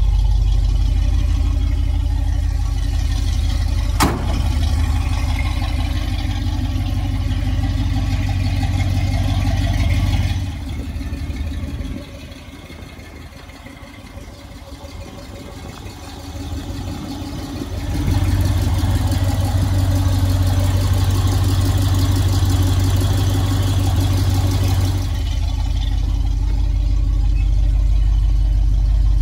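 Engine and road noise inside the cab of a 1970s Ford F-series pickup under way: a steady low drone that drops to a much quieter stretch about halfway through, then comes back. A single sharp click about four seconds in.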